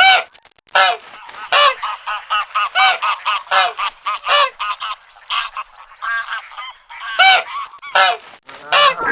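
Domestic geese honking: a rapid, uneven series of short, harsh calls, several a second.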